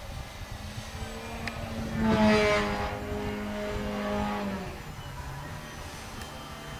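Electric motor and propeller of a 65-inch U Can Do 3D RC plane in flight, running on a 6S battery. Its steady pitched buzz swells about two seconds in, holds, then drops back to a lower, quieter tone near the end.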